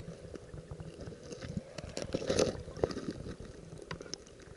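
Stream water heard through an underwater action camera: an uneven low rushing and gurgling with scattered clicks and knocks, loudest about two and a half seconds in.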